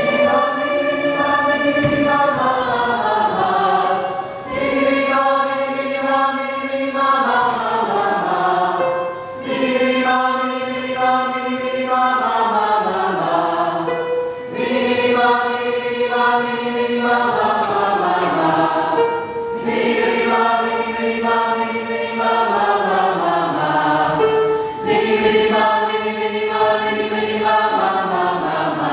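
Recorded music with long held notes in phrases that step downward in pitch, breaking briefly about every five seconds.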